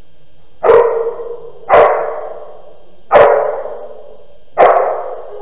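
A dog barking four times, about a second apart, each bark sharp and trailing off in echo from the bare concrete hall.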